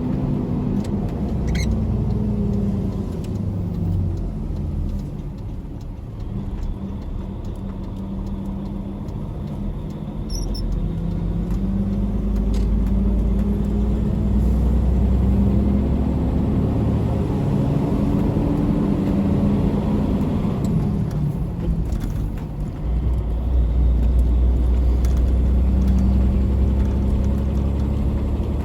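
Tractor-trailer's diesel engine running on the road with a heavy low rumble, its revs climbing and dropping several times as it pulls through the gears.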